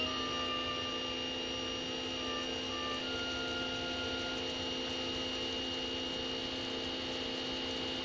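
Electric pressure washer's motor and pump running steadily, a hum with a high whine held at one pitch.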